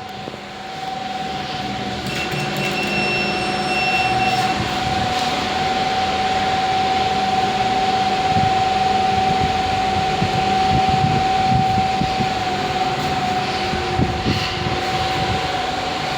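Passenger lift car travelling down its shaft: a steady running rumble and air rush with a constant whine, building up over the first two seconds as the car gets under way.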